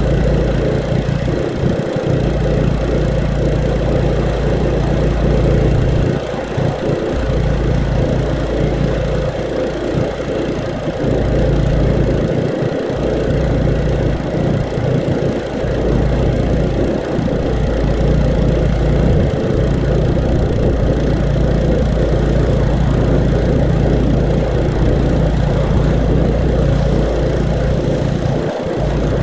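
Petrol-engine water blaster (pressure washer) running steadily under load while the lance sprays. Its low hum dips briefly a few times.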